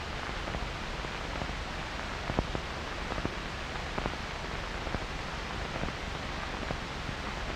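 Steady hiss with a few faint scattered clicks and pops: the noise floor of an old film soundtrack between narration.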